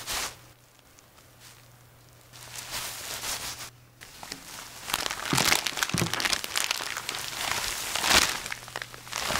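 A short click, then from about two and a half seconds in the crinkling rustle of a disposable protective coverall as its wearer moves, in uneven swells up to the end.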